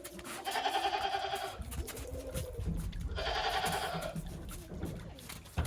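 Goats bleating: two long quavering bleats, each over a second, with a fainter call between them and another starting near the end.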